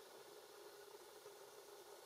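Near silence: a faint steady hiss with a faint, even hum underneath.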